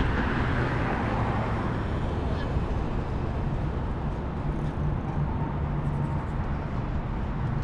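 City street traffic: a steady wash of vehicle noise with a low engine hum underneath, swelling as a vehicle goes by in the first second or two.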